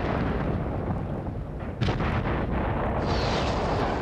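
Bomb explosions: a continuous heavy rumble, with a sharper blast about two seconds in.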